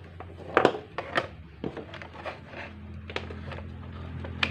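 Handling clicks and knocks of a plastic digital multimeter and its test leads as it is picked up, its selector dial turned and the meter set on the radio. A steady low hum runs underneath, thickening a little over halfway through.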